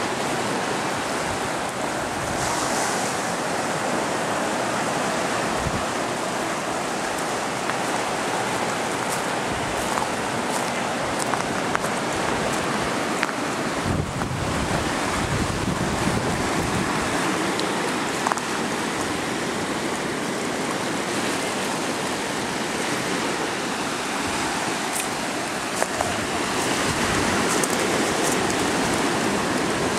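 Small waves washing steadily over a beach of shells and pebbles.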